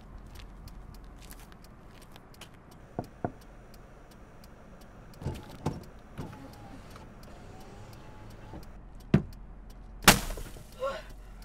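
Low steady hum of a car idling, heard inside the cabin, with a few scattered knocks and clicks. Midway a power window whines for about two seconds, and near the end comes a sudden loud rush of noise, the loudest thing here.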